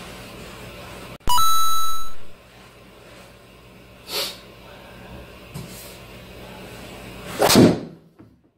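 A loud electronic chime with several steady ringing tones about a second in, lasting about a second. Near the end, a driver swing and the sharp strike of the clubhead on the golf ball off a hitting mat.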